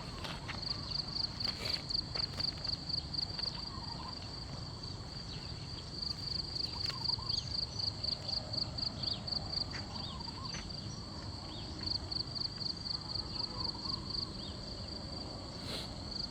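A night insect, cricket-like, chirping in a rapid high-pitched pulsing trill. The trill comes in runs of a few seconds with short breaks between them.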